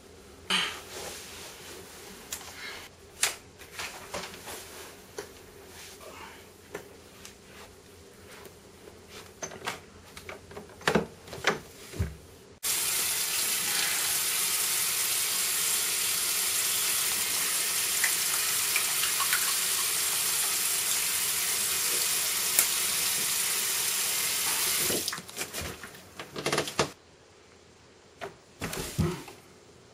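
Bathroom tap running into a sink: a steady rush of water that starts suddenly about twelve seconds in and stops about twelve seconds later. Before it come scattered light knocks and rustles, and after it a few sharp clicks.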